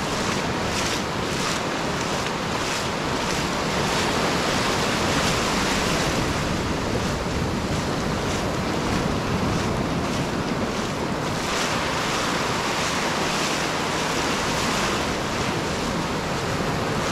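Small surf breaking and foam washing up over shallow sand, a steady rush of water with wind buffeting the microphone.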